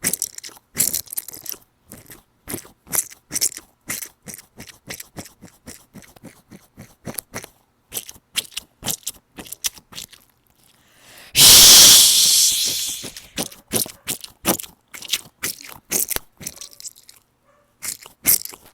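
A squishy dumpling toy being squeezed and kneaded close to the microphone, making rapid crackly, crunchy squishing sounds, with a louder rushing hiss lasting about two seconds partway through.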